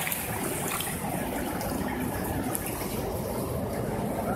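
Shallow water flowing and trickling among rocks: a steady, unbroken rushing noise.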